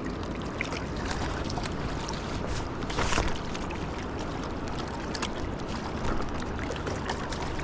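Steady rush of fast-flowing river water with wind on the microphone, a brief noisy swish about three seconds in and a few faint clicks.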